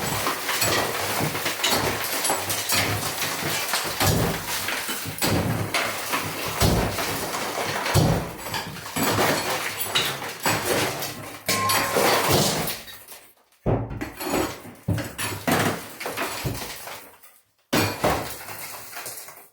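Pickaxe striking concrete, breaking it up, with broken pieces clattering; a rapid run of hits that pauses twice briefly near the end.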